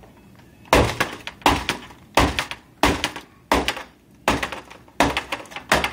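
A laptop being smashed with eight heavy, even blows about every three-quarters of a second, its plastic case and screen glass breaking under them.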